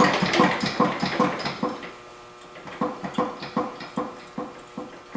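Riding lawn mower chassis and seat creaking and knocking in rhythm under a person's weight as he bounces on it, loading the newly welded V8 motor mounts and frame. The knocks come quickly at first, pause about two seconds in, then resume at a slower, even pace.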